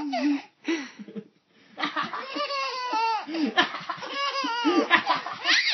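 Baby laughing: a short laugh at the start, a pause, then a string of quick laughs from about two seconds in.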